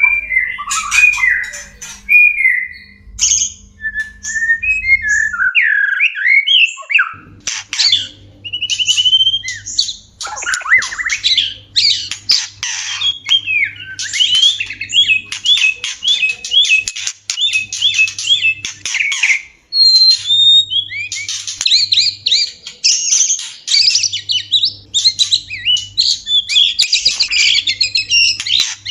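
White-rumped shamas giving mating calls. Scratchy chattering calls come first, then after a short pause a dense run of high, fast song and rattling calls, with a string of evenly repeated notes partway through.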